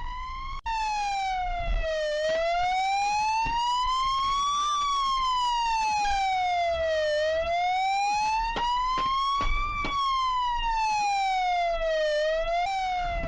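Police siren in a slow wail, its pitch rising and falling about every two and a half seconds, with low road rumble underneath. The siren cuts out for a moment under a second in.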